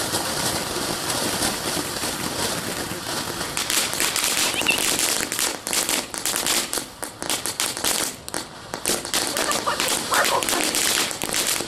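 Consumer firework, a Lucky Leprechaun, spraying with a steady hiss, then going into rapid crackling pops from about three and a half seconds in.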